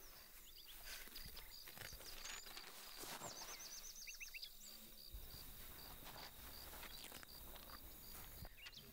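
Faint outdoor ambience of birds and insects: a high chirp repeating evenly about three times a second, with a few short bird calls, a quick run of calls about three seconds in, and occasional faint rustles.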